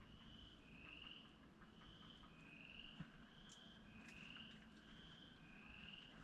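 Faint night chorus of calling frogs or insects: short, high calls roughly every 0.7 s, two callers alternating, one pitched a little higher than the other.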